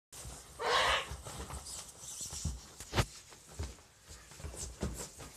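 Plastic bags rustling and crinkling as a child moves around in them, with low thumps of feet on the floor. A loud crinkle comes near the start and a sharp knock about three seconds in.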